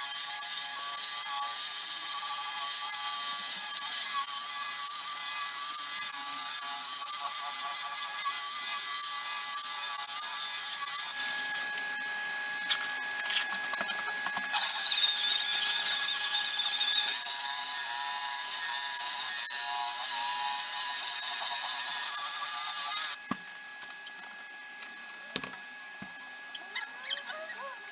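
Handheld electric car polisher with a foam pad running on a car's paint: a steady high whine over a rubbing hiss. It drops off for a few seconds a little before halfway, runs again, and stops about five seconds before the end, after which only faint rubbing is heard as the panel is wiped with a towel.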